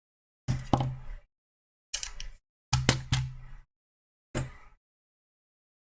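Knocks and clatter of a hard plastic power-tool battery pack being handled, in four short bursts.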